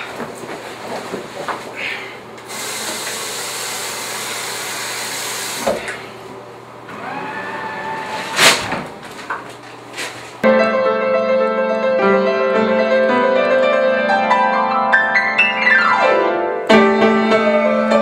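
Scuffling knocks in a tiled restroom, with a steady rushing hiss for about three seconds and a sharp thump a little before halfway. Then piano music comes in and runs on, with a quick descending run near the end.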